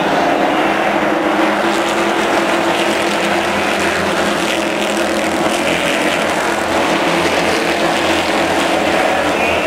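A field of late model stock cars racing around a short oval, their V8 engines running together loud and steady as the pack goes by.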